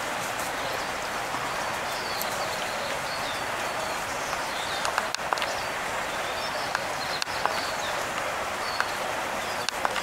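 Outdoor ambience: a steady hiss with faint, scattered small-bird chirps and a few soft clicks.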